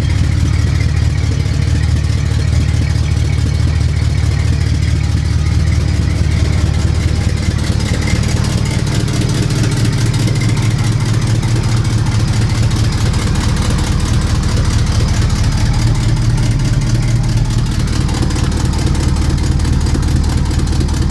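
Car engine idling steadily and loudly, its exhaust noise coming from a large exhaust leak.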